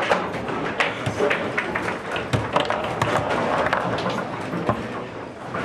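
Foosball table in play: a rapid, irregular series of sharp knocks and clacks as the ball is struck by the plastic figures, bounces off the table walls, and the rods are slid and spun.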